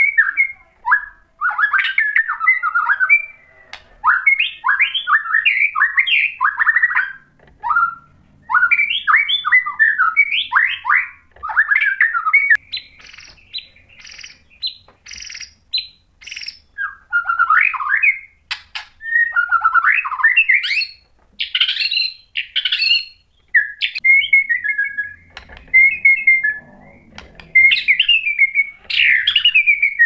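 White-rumped shama (murai batu) singing: bursts of rapid, varied whistled phrases with short pauses between them, some sharp clicking notes around the middle, and a run of steadier repeated notes near the end.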